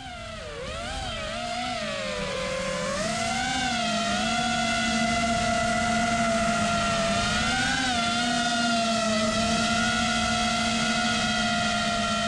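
A 6S FPV freestyle quadcopter's four T-Motor F40 Pro II 1750kv brushless motors and Ethix S4 props whine, heard from the onboard GoPro. The pitch swoops up and down in the first few seconds as the drone manoeuvres, then holds mostly steady as it hovers, with one small rise about eight seconds in.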